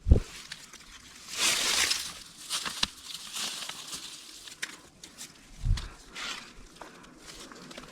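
People's footsteps and rustling through forest undergrowth, with a noisy swell of brushing about a second and a half in and scattered small snaps. A sharp low thump at the very start is the loudest sound, and a second low thump comes near the six-second mark.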